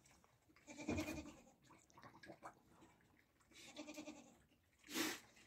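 A goat bleating faintly three times, each call short and evenly pitched, with a short breathy noise near the end.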